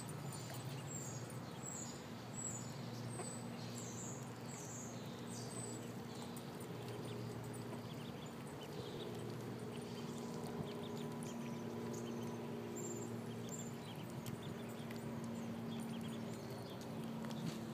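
Ducklings peeping: a quick series of short, high, falling chirps in the first few seconds, with a few more scattered later, over a steady low hum.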